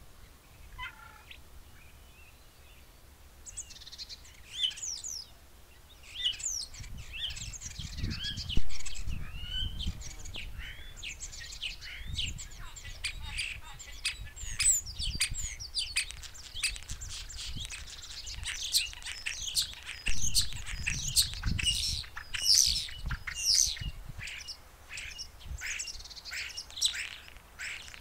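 Many small birds chirping and singing in quick, overlapping calls, sparse at first and busy from a few seconds in. Irregular low rumbles come and go underneath, the loudest about a third of the way through.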